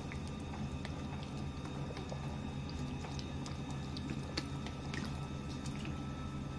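Sugar syrup squeezed from a plastic bottle onto a sponge cake layer: faint crinkles of the plastic bottle and small wet drips and ticks, scattered over a steady low hum.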